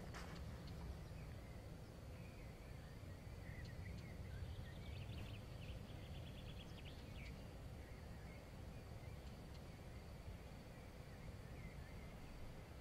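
Quiet outdoor ambience: a steady low rumble with small birds chirping now and then and a rapid trill about five seconds in, over a faint steady high tone. A single click right at the start.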